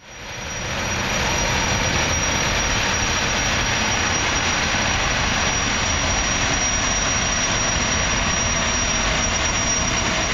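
High-speed jetfoil ferry passing close by, its gas turbines running with a steady rushing noise and a thin high whine over it. The sound swells in over the first second and then holds steady.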